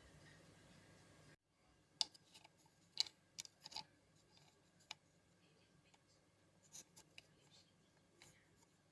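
Faint, scattered light clicks and taps, the sharpest about two and three seconds in. A faint steady hum cuts off suddenly about a second and a half in.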